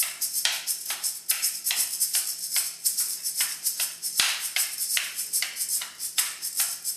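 A shaker or maracas shaken in a steady rhythm, about two to three rattling strokes a second.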